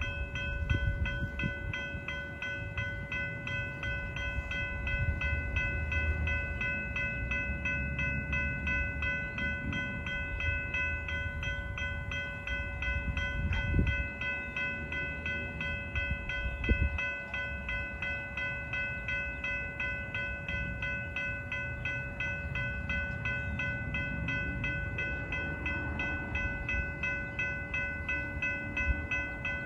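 Freight train of covered hopper cars rolling past: a steady low rumble of steel wheels on rail, with a couple of louder knocks about halfway through. A steady high-pitched ringing tone runs over it throughout.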